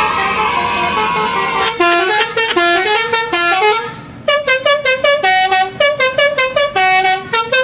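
Bus telolet Basuri multi-tone horn playing a tune: a held tone, then from about two seconds in a fast rhythmic run of short notes stepping up and down in pitch.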